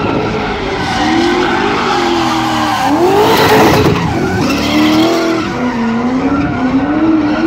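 Drift car's engine revving up and down while its tyres skid. There is a sharp rev about three seconds in, and the tyre noise is loudest over the next second.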